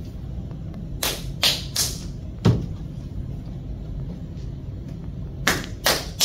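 Pieces of soft clay slapped and pressed together by hand as cut sections of a brown and a white clay are joined. Three quick slaps come about a second in, then a dull thud, then two more slaps near the end.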